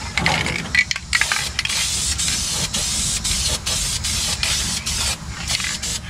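Aerosol spray-paint can hissing as paint is sprayed, starting about a second in and carrying on in long spurts broken by many brief stops.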